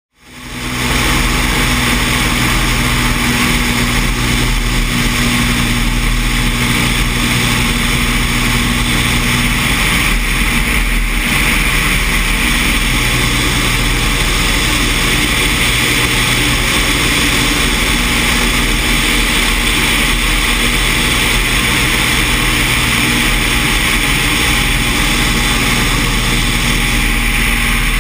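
Single-engine jump plane's engine and propeller running steadily in flight, under loud rushing wind noise on the microphone outside the open aircraft. It fades in during the first second.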